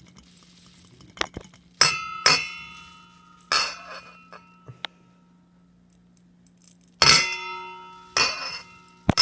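Mixing bowl struck with sharp knocks, about seven times, each knock leaving the bowl ringing with several clear tones that fade over a second or so; the loudest knock comes about seven seconds in. The knocks come as oats are poured into the bowl.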